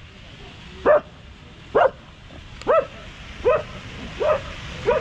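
A dog barking six times, about one bark a second, evidently at monkeys it has been urged to chase off.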